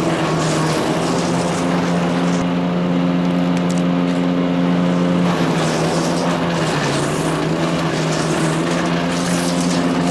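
Kohler CH440 14 HP single-cylinder engine of a Power King wood chipper shredder, running steadily at speed. Its pitch dips briefly about seven seconds in, and short bursts of higher hiss and rattle come three times.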